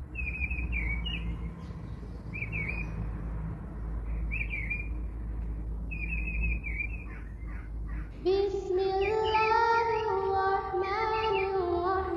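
Bird chirps repeating about every two seconds over a low steady hum. About eight seconds in, a melody of held notes that step up and down comes in and becomes the loudest sound, with the chirps going on under it.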